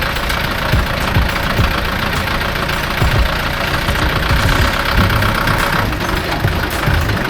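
Engine of a heavy construction machine running steadily at idle, with a rapid, uneven low pulsing.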